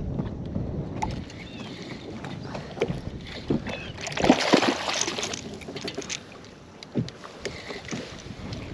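Wind on the microphone and water lapping against a bass boat, with scattered light knocks and splashes. A louder rush of splashing comes about four seconds in, as a hooked bass thrashes at the surface.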